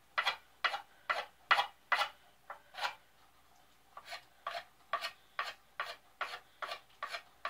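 Repeated scraping strokes along a wooden axe handle, about two to three a second, stripping off its factory varnish; the strokes pause briefly about three seconds in, then resume.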